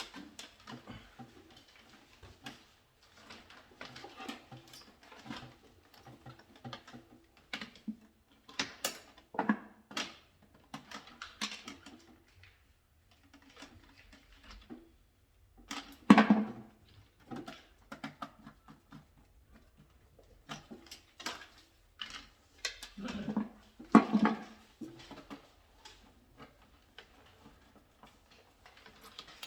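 Irregular clicks, knocks and rustling of plastic flexible (CD) conduit and tools being handled as a practice wiring installation is dismantled. The loudest knocks come about 16 and 24 seconds in.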